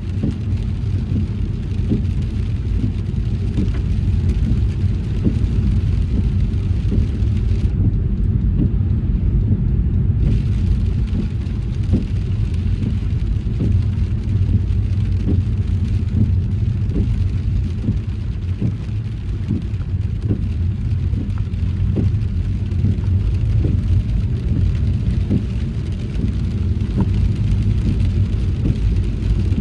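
Car driving in rain: a steady low road rumble with scattered light taps of raindrops on the car. The higher hiss drops away for a couple of seconds about eight seconds in.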